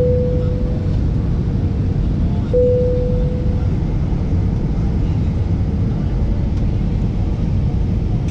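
Airliner cabin noise heard from a window seat during descent: a steady low rumble of the jet engines and airflow. Two short ringing tones sound, one at the start and one about two and a half seconds in, each fading out within about a second.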